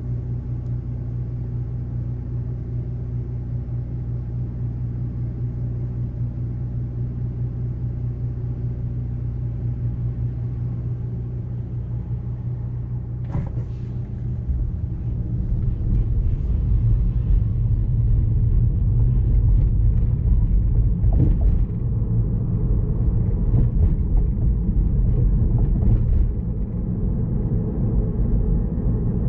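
Low, steady hum inside the cabin of a Tesla Model 3 sitting stopped. A click comes shortly before the electric car pulls away, about fourteen seconds in. Then louder tyre and road rumble rises and stays loud as it drives on.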